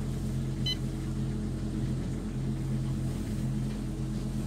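Survey boat's motor running with a steady hum, and a short electronic beep about a second in.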